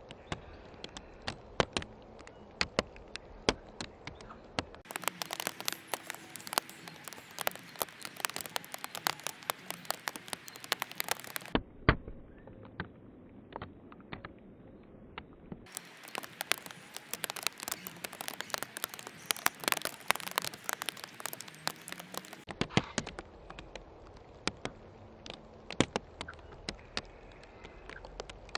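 Sped-up backyard audio from a bird timelapse: a dense, irregular run of sharp clicks and ticks over a low hiss. The sound changes abruptly several times where clips are cut together.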